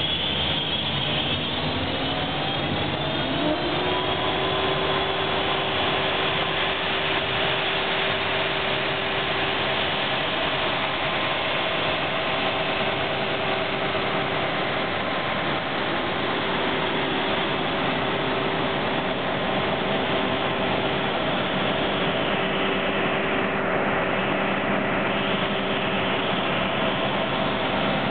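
Industrial combined planing and wide belt sanding machine running steadily, a whine rising over the first few seconds then holding even.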